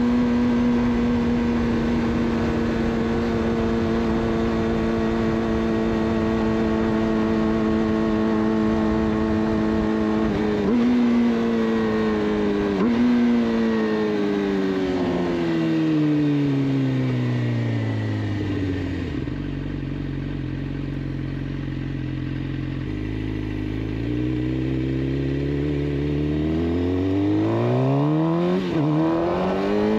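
Suzuki GSX-R 600 inline-four engine, its de-cat Yoshimura exhaust cruising at steady revs. It then takes two quick downshifts and slows, the revs falling away to a low steady note. After that it accelerates again with rising revs and shifts up near the end.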